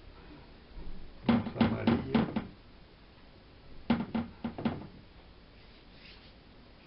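Quick knocks of a paintbrush against the palette and brush jar while mixing watercolour: a run of about five knocks, then four more about two seconds later.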